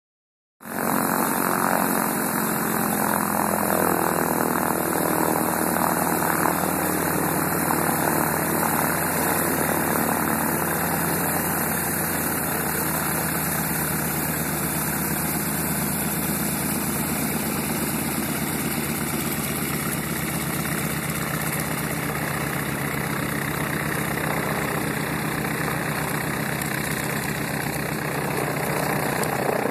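North American T-6 Texan's nine-cylinder Pratt & Whitney R-1340 radial engine running steadily at low power while the plane taxis.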